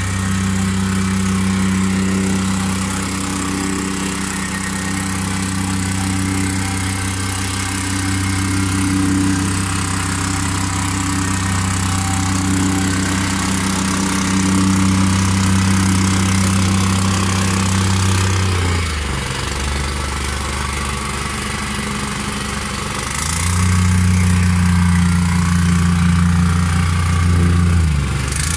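Small petrol engine of a vibratory plate compactor running steadily at working speed as the plate compacts the base. About two-thirds of the way through it slows to idle for a few seconds, then speeds back up, and slows again right at the end.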